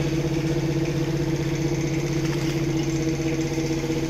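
Steady mechanical hum of a motor running evenly, at one unchanging pitch.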